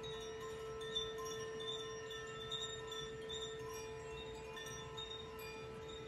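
Crystal singing bowl rubbed at the rim, sounding one steady held tone, while a hand-held bamboo-tube chime tinkles over it in scattered bright ringing notes.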